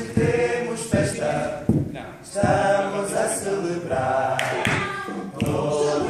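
A group of voices singing together in phrases of held notes.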